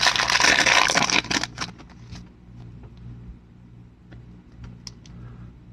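Foil wrapper of a Topps Chrome trading-card pack crinkling loudly for about a second and a half as the pack is opened, then scattered soft clicks and rustles of the cards being pulled out and thumbed through.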